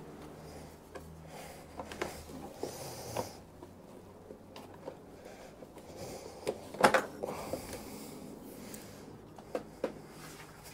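Scattered light clicks, knocks and a brief rustle of hands working the exhaust servo unit and its fittings loose under a motorcycle frame, with a louder clatter about seven seconds in, over a faint low hum.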